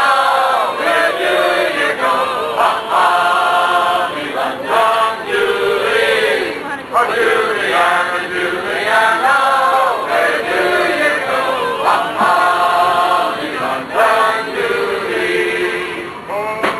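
A group of voices singing together in a chant-like song, with long held notes.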